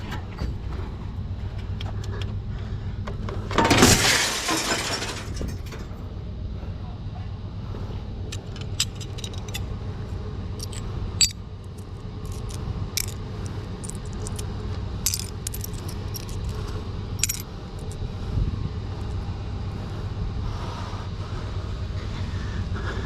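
Light metallic clinks and rattles scattered over a steady low hum, with one loud rustling crash about four seconds in.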